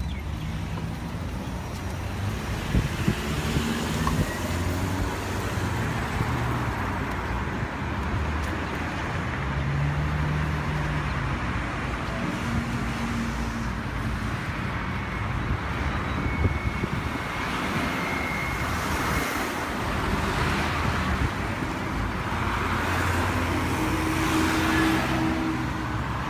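Road traffic: cars and other motor vehicles running and passing along a busy street, a steady wash of engine and tyre noise with engine tones rising and fading as vehicles go by.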